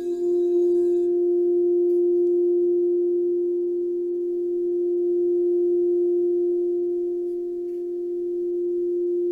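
Singing bowl sounding one long, steady, pure tone with a few fainter overtones, swelling and fading slowly in loudness; its higher ring dies away about a second in.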